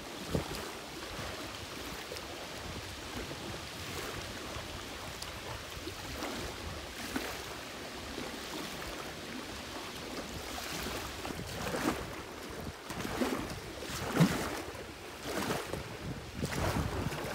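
Small waves lapping and splashing, with wind on the microphone; the splashes come more often in the second half.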